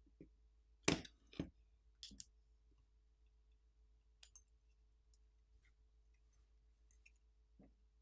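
Light clicks and taps of a smartphone main board and frame being handled during disassembly: two louder knocks about a second in, a smaller click pair soon after, then a few faint ticks.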